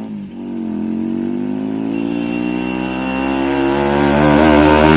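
KTM 390 single-cylinder motorcycle with a loud exhaust approaching at speed, its engine note growing steadily louder as it nears for a fly-by.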